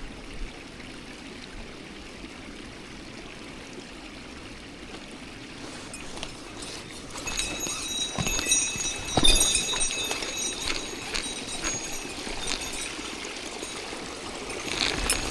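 Mountain stream running steadily. From about halfway in, louder close-up clicks and splashy sounds join it.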